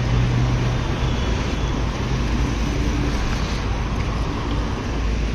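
Road traffic passing close by: a steady rush of vehicle engines and tyres, with a low engine hum underneath.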